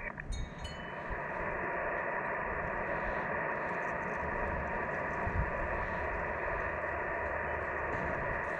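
Ham radio transceiver's speaker giving a steady hiss of band static, with faint steady tones in it and no station talking, the sound cut off above the voice range by the receiver's filter. A few faint ticks come in the first second.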